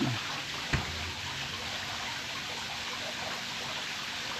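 A steady hiss like running water, with one sharp click about three quarters of a second in.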